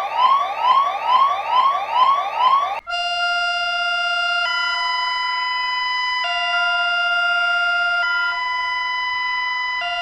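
Electronic emergency alert alarm: rapid rising whooping sweeps, about three a second, then about three seconds in it switches to a steady two-tone alarm that alternates between a low and a high pitch roughly every two seconds.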